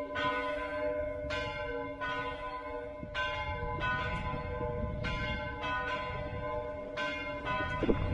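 Church bells rung in full peal, all swinging together: overlapping strikes come about one to two times a second, with the tones ringing on between them. A low rumble rises near the end.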